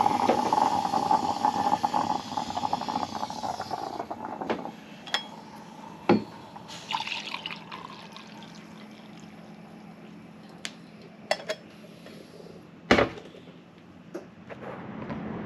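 A stovetop moka pot gives a loud rushing hiss for the first few seconds. Coffee is then poured from it into a mug, with a few metal clinks and knocks, the loudest near the end as the pot is set down.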